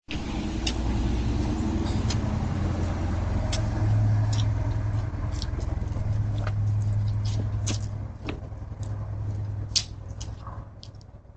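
A vehicle engine running close by: a steady low hum that eases off about eight seconds in, with scattered sharp clicks and one louder click near the end.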